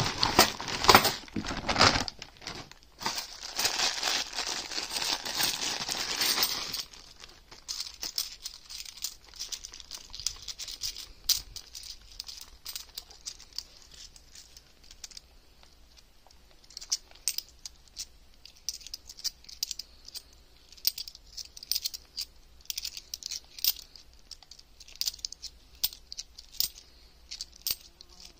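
Plastic bank bag of 50p coins crinkling loudly as it is opened and the coins are tipped out, for the first several seconds. After that comes a quieter, scattered clicking and clinking of the 50p coins as they are handled and turned over in the fingers.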